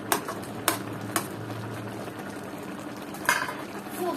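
Metal ladle knocking and scraping against an aluminium wok of simmering pork and greens stew: three sharp taps in the first second or so, then the steady hiss of the simmering stew, with one more knock a little past three seconds.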